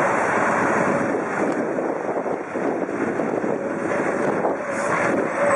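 Wind rushing over the microphone of a bike-mounted camera, a steady rushing noise, over the hum of slow-moving city traffic.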